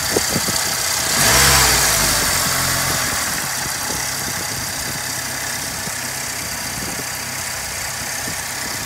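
1985 Chrysler New Yorker's 2.2-litre turbocharged four-cylinder engine idling steadily. A few sharp clicks near the start, and about a second in a swell of louder, hissy sound that fades slowly.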